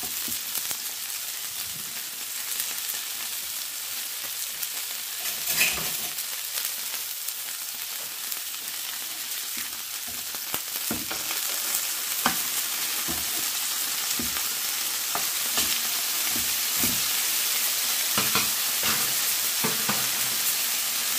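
Beef burger patties sizzling steadily in a hot non-stick frying pan. Through the middle part, scattered clicks and scrapes of a metal spatula and spoon on the pan as the patties are turned over.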